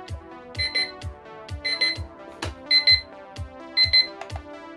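XREXS LED digital wall clock's countdown-timer alarm beeping: a short burst of quick high beeps about once a second, which signals that the timer has reached zero.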